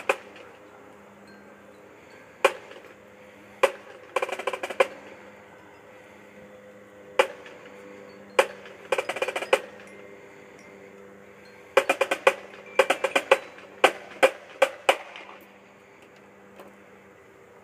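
Snare drum struck in single sharp hits and short, quick runs of strokes, with gaps of a second or more between them; the strokes come thickest near the end.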